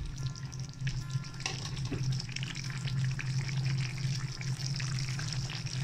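Fish and bottle gourd curry bubbling and sizzling in a pan, the crackle thickening about a second and a half in, over a steady low hum.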